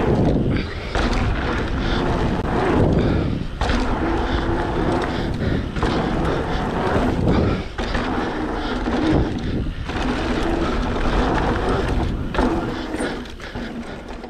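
Mountain bike tyres rolling fast over hardpacked dirt on a jump line, with wind rushing over the microphone and the bike rattling. Short lulls come every two seconds or so as the wheels go over the jumps, followed by landings.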